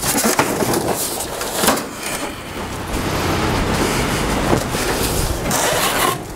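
Table saw shipping packaging being pulled away by hand: plastic and foam rustling and scraping against the cardboard box, with a few knocks.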